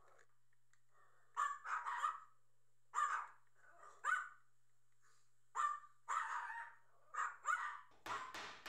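A dog barking repeatedly in short runs of two or three barks, with pauses of a second or two between runs, and a few sharp clicks near the end.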